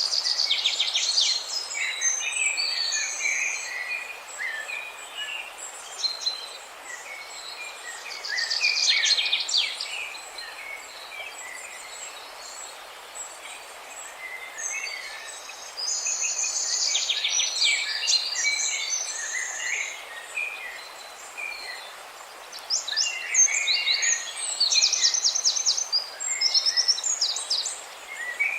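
Small songbirds chirping and trilling in quick, high phrases, several bursts a few seconds apart, over a steady hiss of background noise.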